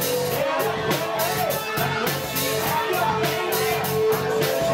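Live rock band playing loudly: electric guitar and bass over a drum kit with steady cymbal strikes, with long held notes on top.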